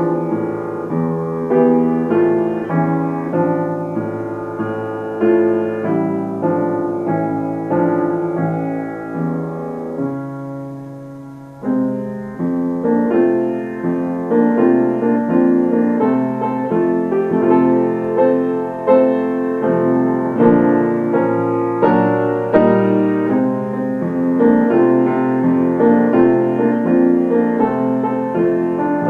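Grand piano being played: a continuous flow of notes and chords. About ten seconds in, a low note is held and fades away, then the playing picks up again more loudly.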